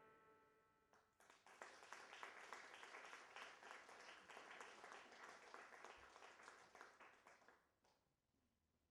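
The last note of the music dies away, then an audience applauds faintly for about six seconds before the clapping stops.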